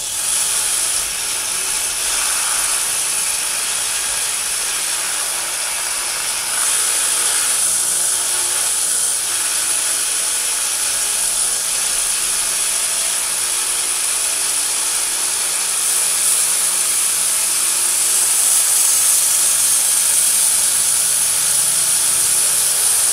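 Small electric belt grinder running with a 5160 steel katana blade held against the belt: a steady, loud hissing grind as the freshly quenched blade is cleaned up, a little louder in the second half.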